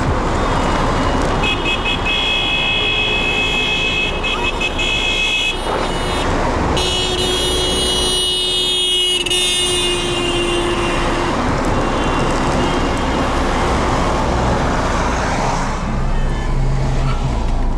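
Road traffic noise: cars running along a busy road under a loud, steady rushing noise. A high, held tone sounds twice for a few seconds each.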